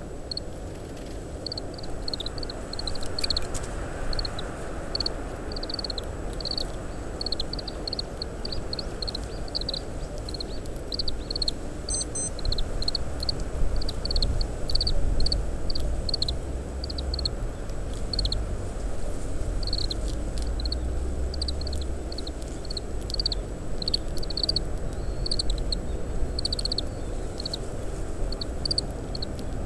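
Oriental greenfinches giving short call notes, several a second, over a low rumble of wind on the microphone that grows stronger midway.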